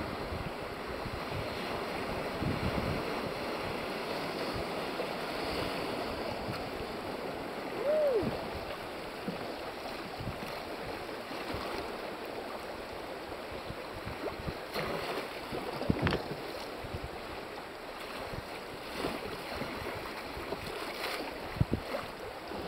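Fast river current and choppy water rushing past a canoe, with wind over the microphone. A short squeak that rises and falls comes about eight seconds in, and a few sharp knocks come in the second half.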